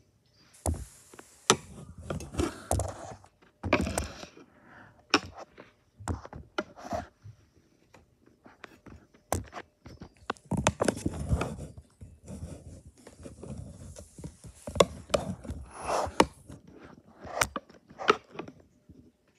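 Irregular knocks, clicks and scraping and rubbing noises, some sharp and loud, with no steady sound behind them: handling and rubbing noise close to the microphone.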